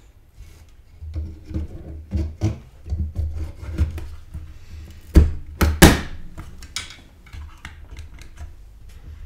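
Pentium II slot cartridge being fitted into a motherboard's Slot 1 retention bracket: a run of plastic knocks, clicks and rubbing. The two loudest clacks come about five seconds in, just over half a second apart, as it is pushed home.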